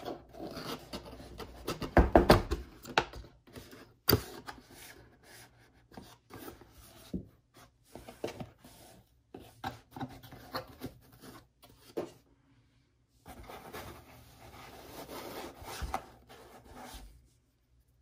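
Cardboard box and foam packaging being handled and opened: rubbing, scraping and rustling with many small knocks and clicks, pausing briefly about two-thirds of the way through.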